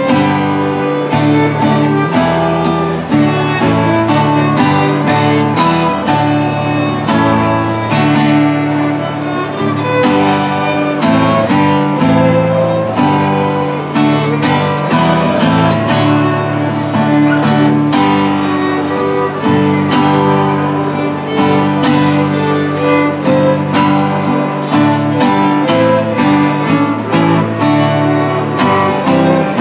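Fiddles playing a tune with strummed acoustic guitar accompaniment.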